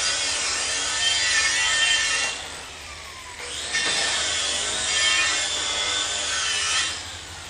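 Handheld angle grinder grinding steel, its whine wavering with the load. It winds down a little over two seconds in, starts up and grinds again about a second later, then winds down near the end.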